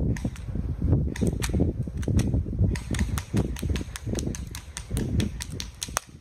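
Airsoft guns firing: a string of sharp, irregularly spaced pops and clicks, several a second in places, over low rumbling movement and handling noise.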